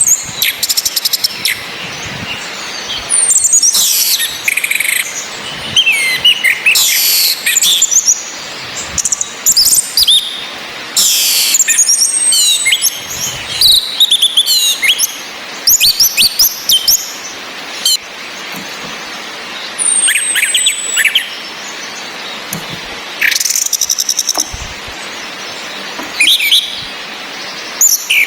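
Orange-headed thrushes: a male singing repeated, varied song phrases while a female calls to him with thin, high 'cis' notes that slide downward, heard every several seconds. A steady hiss of rain runs underneath.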